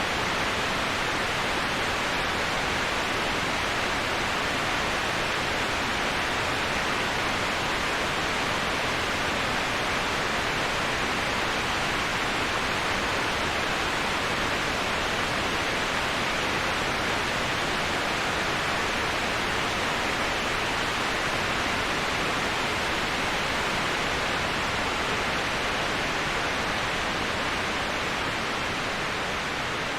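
Waterfall: a steady, even rush of falling water, dipping slightly in level near the end.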